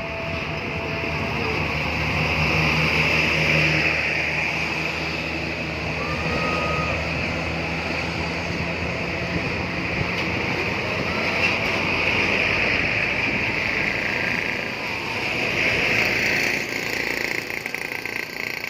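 Road traffic with buses passing: steady engine and tyre noise that swells about three seconds in and again near sixteen seconds.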